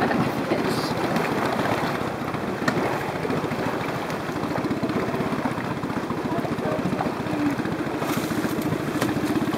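A boat's engine idling steadily, a fast, even throb.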